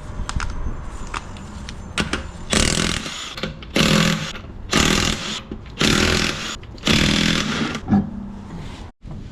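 Power impact wrench with a 22 mm socket zipping the lug nuts off a wheel: a few clicks as the socket goes on, then five short bursts, one per nut.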